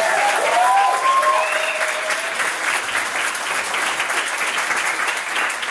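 Applause from the press-room audience and the panel, a dense, steady clatter of many hands, with a voice or two calling out over it in the first couple of seconds.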